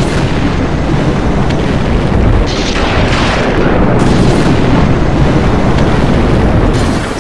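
Strong storm wind buffeting the microphone: a loud, continuous low rumble with no breaks.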